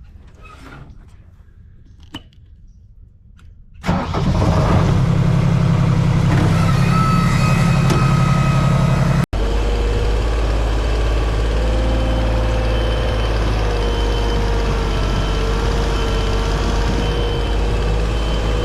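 A few faint clicks, then about four seconds in a Genie lift's engine starts and runs loudly and steadily, with a wavering whine over its low hum.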